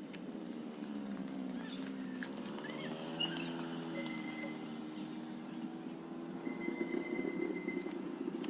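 Stihl 070 two-stroke chainsaw engine running at low speed. Its pitch sags and picks back up in the first couple of seconds, then holds steady and grows a little louder near the end.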